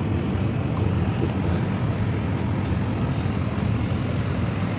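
A steady low engine rumble, even throughout with no revving or change.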